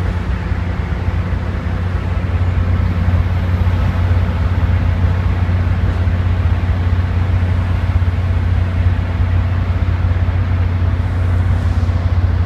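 MBTA commuter rail diesel locomotive of the kind railfans call a 'Screamer' running loud under departure, a steady low engine drone with a high-pitched noise over it, building a little in the first two seconds and then holding.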